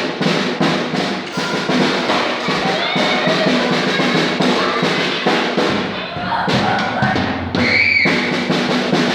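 Drum kit being played, with frequent irregular hits on the drums and cymbals throughout.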